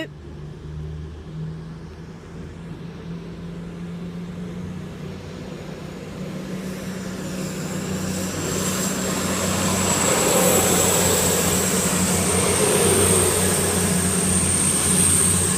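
Class 222 Meridian diesel multiple unit drawing into the platform, its underfloor diesel engines droning and growing steadily louder. A thin high whine comes in about halfway and gets stronger.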